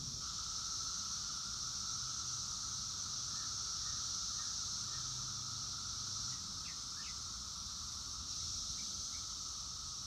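Chorus of thousands of 17-year periodical cicadas singing: a steady, unbroken high-pitched drone with a lower whine beneath it.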